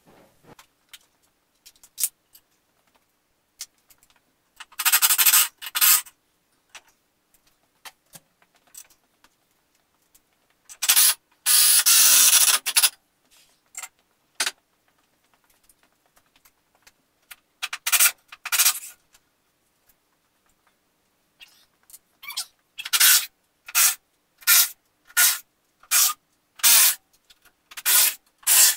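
Hand rasping or scraping strokes at the workbench, in regular strokes about two a second over the last several seconds, after a few longer bursts of the same rough noise earlier.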